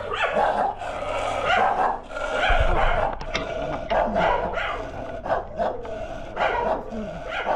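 Many shelter dogs barking together in a continuous, overlapping chorus. The keeper puts it down to strangers arriving at feeding time.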